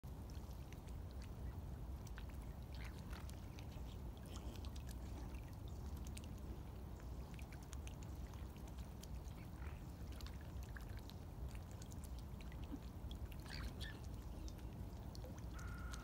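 Lakeside ambience: water trickling and splashing softly as mute swans feed with their heads dipped in the lake, over a steady low rumble, with a few short bird calls scattered through.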